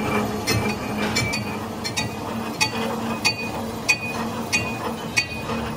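Belt-driven metal lathe running with a rough cast tractor rear axle tube spinning in its chuck: a steady machine hum with a sharp metallic clink repeating about one and a half times a second.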